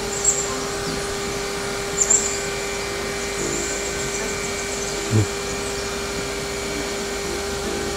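Steady mechanical hum of one pitch, with two short high chirps in the first two seconds and a single low thump about five seconds in.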